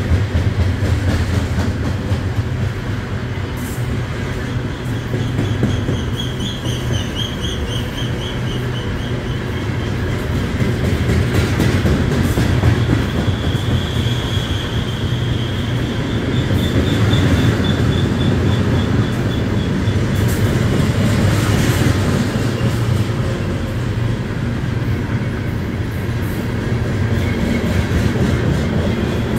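Aluminum coal cars of a BNSF freight train rolling past: a steady low rumble of steel wheels on rail with clicks as wheels cross rail joints. A high, wavering wheel squeal comes in a few times, about 6 seconds in, for several seconds from about 12 seconds, and near the end.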